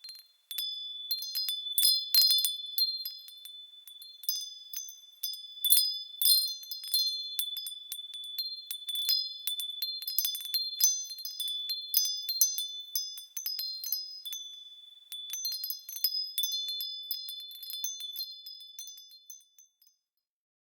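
Wind chimes being struck irregularly, several high-pitched tones ringing on and overlapping. The chimes fade and stop near the end.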